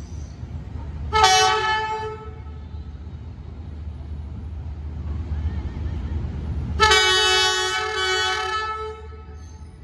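Horn of a D19E diesel-electric locomotive sounding twice: a short blast about a second in, then a longer blast of about two seconds near the end. A steady low engine rumble runs underneath.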